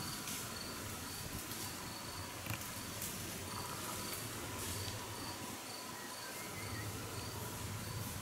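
Insect chirping in short, evenly spaced pulses, a few a second, over a soft steady hiss of forest ambience.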